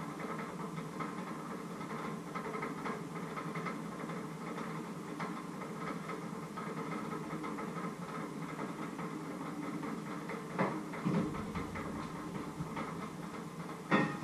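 Steady kitchen background hum and rumble, with a short knock about ten and a half seconds in and a sharper knock near the end.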